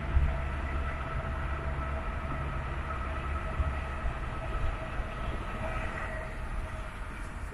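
Road noise heard from inside a moving car in a motorway tunnel: a steady low rumble with a steady whine above it, both easing about six seconds in as the car leaves the tunnel.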